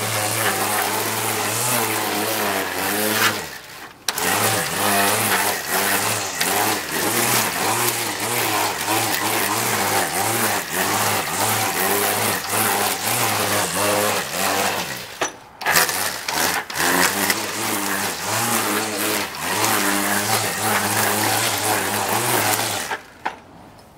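Cordless string trimmer running and cutting grass, its motor hum wavering in pitch under load with a hiss from the spinning line. The motor stops briefly three times, a few seconds in, about midway and near the end, then starts again each time.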